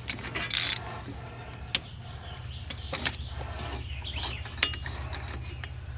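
Ratchet wrench clicking and metal parts clinking as the axle nut is backed off a front wheel hub, with a short burst of rasping at the start and scattered sharp clicks after it.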